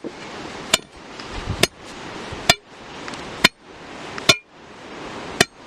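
Hammer blows, six evenly spaced strikes about one a second, each with a short metallic ring.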